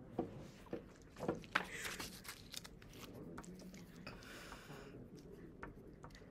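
Paper card being handled and rustled close to the microphone, with several sharp taps and knocks in the first two seconds and a longer rustle about four seconds in.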